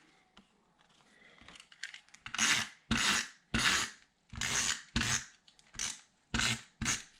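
About eight short rasping strokes of a tool across paper, roughly one every half second, starting about two seconds in.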